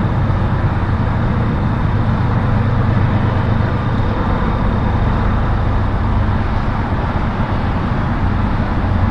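Steady low rumble with a hiss over it, and a faint thin high whine that fades out about halfway through.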